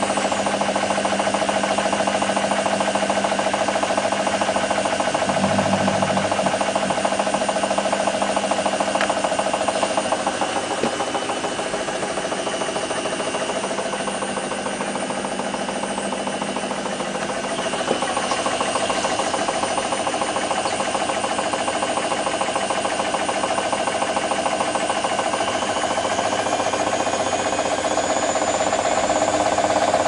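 Candy Nova CN146 front-loading washing machine in its final spin, the drum turning at about 400 rpm. The motor gives a steady whine over the drum's fast rumble. The sound drops a little about eleven seconds in and comes back up about eighteen seconds in.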